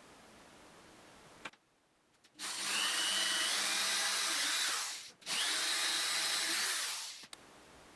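Power tool running in two bursts, the first about two and a half seconds and the second about one and a half, with a brief stop between them.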